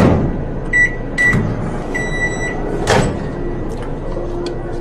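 Electronic beeps, two short ones and then a longer one, over steady background noise, with a sharp click at the start and another about three seconds in.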